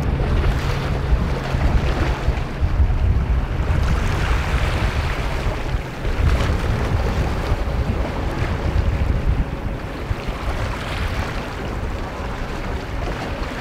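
Wind buffeting the microphone in gusts over the steady wash of choppy seawater.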